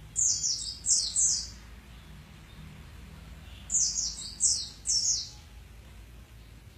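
A bird calling in two bursts of quick chirps, each chirp sweeping down in pitch: about four chirps just after the start and about four more a little past halfway.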